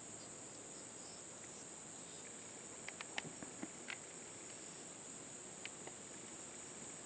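Insect chorus: a steady high-pitched drone, with a few faint clicks or taps about halfway through.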